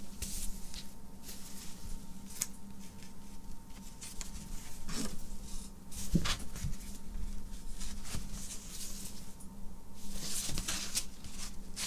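Cardboard gatefold LP jacket handled, opened out and folded shut: scattered soft rustles and light taps, over a faint steady hum.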